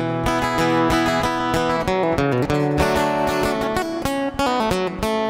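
Acoustic guitar strummed in a steady rhythm, moving through several chord changes with no singing, as an instrumental break in a country song.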